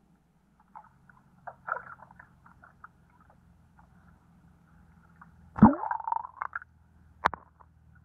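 Muffled underwater knocks and clicks picked up through an underwater camera, scattered and irregular, with one loud thump about five and a half seconds in and a sharp click a couple of seconds later.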